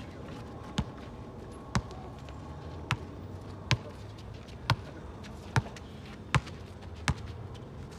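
A basketball being bounced on a hard court, eight bounces about a second apart.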